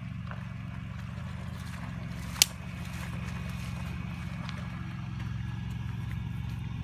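A steady low motor hum throughout, with a single sharp click about two and a half seconds in.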